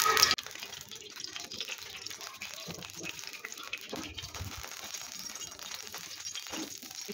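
Cooking oil heating in a nonstick frying pan, sizzling faintly with scattered small crackles. A louder noise cuts off suddenly about a third of a second in.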